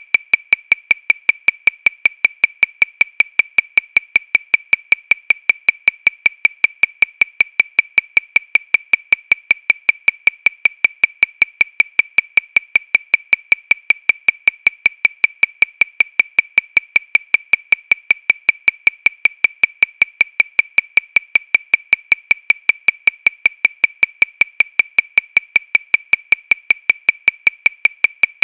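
Metronome clicking steadily at 314 beats per minute, about five clicks a second. Every click is the same sharp, high tick, with no accented beat.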